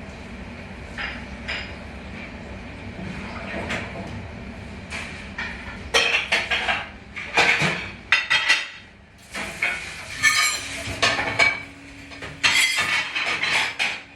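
Dishes and cutlery being handled at a restaurant dishwashing station: a steady background hum, then from about halfway through a run of loud clanks and clatters of plates and metal.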